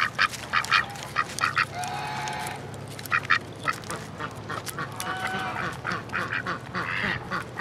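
Pekin duck quacking in runs of short quacks, several a second, with one longer call about two seconds in.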